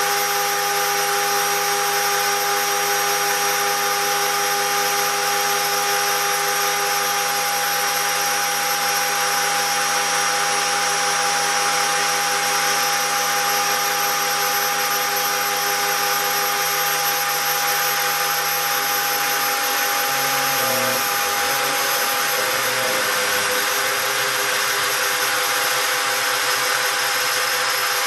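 Spindle of a homemade CNC gantry router running steadily while engraving brass: a constant whine over a loud hiss. About twenty seconds in, the lower tones shift and waver.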